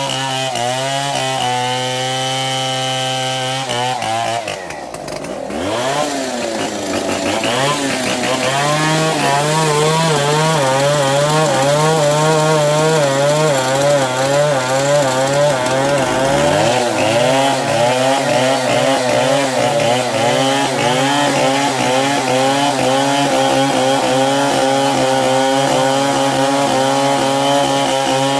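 Two-stroke chainsaw cross-cutting a baobab trunk. The engine runs at a steady high pitch, drops and climbs back about five seconds in and again near sixteen seconds, and otherwise wavers up and down as the chain bites into the wood.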